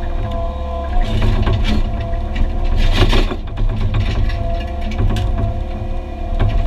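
Excavator at work on concrete: its diesel engine runs under load with a steady hydraulic whine, while scraping and knocking of broken concrete come and go, loudest about three seconds in.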